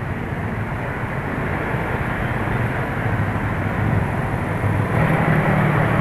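Honda CS1 motorcycle's small single-cylinder engine running at low speed in slow, dense traffic, with the noise of surrounding scooters and cars. About five seconds in, the engine and road noise grow louder as it speeds up.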